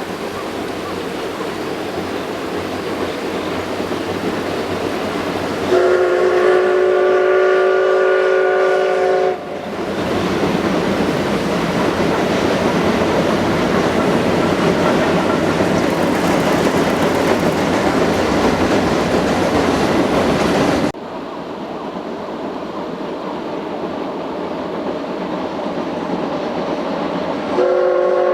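Steam whistle of the C57 180 steam locomotive blowing a chord of several notes, once for about three and a half seconds starting about six seconds in, and again starting near the end. Between the blasts the train runs with steady loud noise dense with rapid beats, which breaks off suddenly about two-thirds of the way through.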